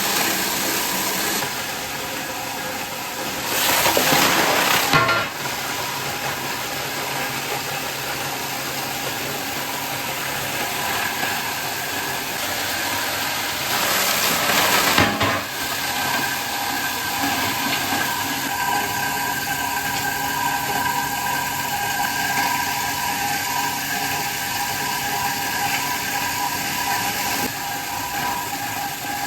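Factory machinery running steadily with a whining hum. Two loud bursts of hissing noise, each about a second and a half long, come about four seconds in and again about fourteen seconds in.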